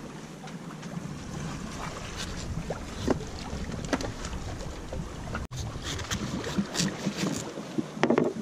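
A knife chopping and shaving the husk of a green coconut: short irregular knocks and scrapes, louder near the end. Under it, steady wind and the wash of the sea along a sailboat under way.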